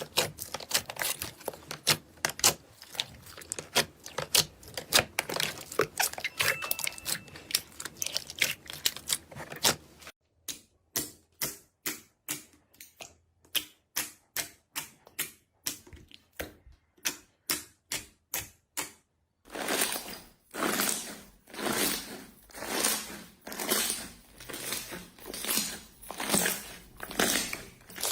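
Slime being squeezed and pressed by hand, making rapid crackling pops. About ten seconds in the pops thin out to about two or three a second with quiet between them. Near twenty seconds they change to slower, fuller pulses about once a second.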